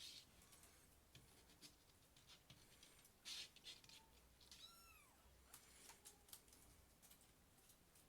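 A kitten meows once, a high call that rises and falls, a little past halfway through. It comes over faint scattered clicks and brief rustles.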